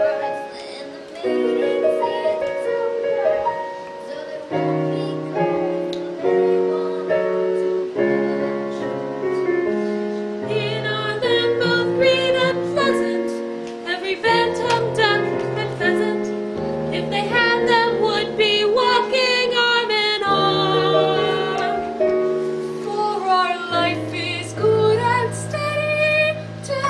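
Musical-theatre music: instrumental accompaniment of sustained chords that change every second or so, with singing over it.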